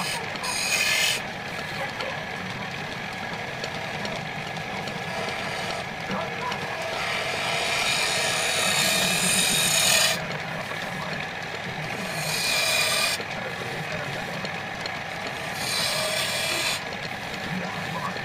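Wood lathe running with a steady hum while a hand-held turning tool hollows out the inside of a small spinning wooden bowl. Four cutting passes come through as bursts of scraping hiss, the longest from about six to ten seconds in.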